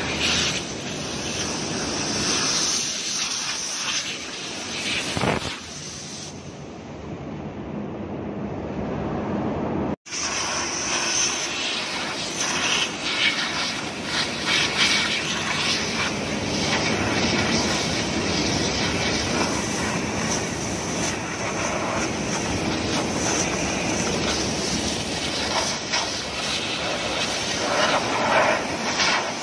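High-pressure hose jet hissing steadily as it blasts cargo residue off the deck around a tank manhole cover. The hiss weakens for a few seconds and cuts off abruptly about ten seconds in, then starts again and keeps on steadily.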